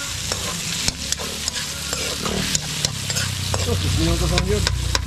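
Food frying in hot oil in a pan with a steady sizzle, stirred with a utensil that knocks and scrapes against the pan several times a second.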